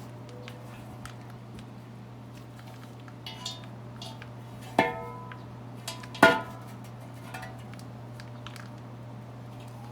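Sharp metallic clanks that ring on, from the steel parts of a split rim being handled and knocked together during a tire mount. There are light knocks, then two loud ringing clanks about five and six seconds in. A steady low hum runs underneath.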